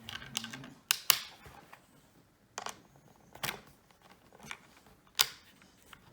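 Small screwdriver working screws into a plastic toy car body: scattered sharp clicks and taps of the tool and plastic, the loudest a pair about a second in and another about five seconds in.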